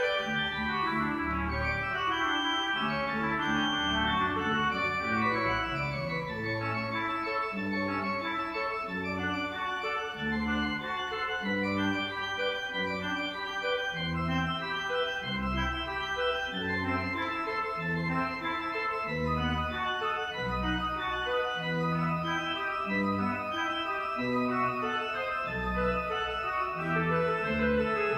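Church organ playing steady, sustained chords over a bass line that moves note by note.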